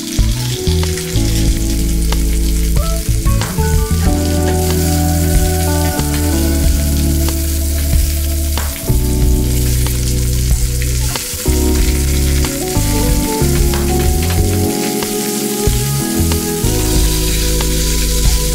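Chicken thighs frying in oil in a frying pan, a continuous sizzle with scattered crackling pops. Soft background music of held notes that change every second or two plays underneath.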